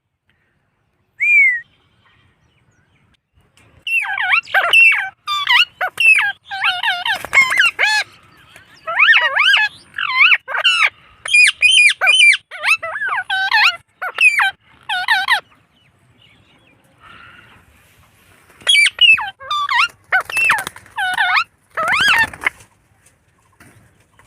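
Indian ringneck parakeet calling: a single short call about a second in, then a long run of rapid chattering squawks and whistles, a pause of a few seconds, and a further burst of calls near the end.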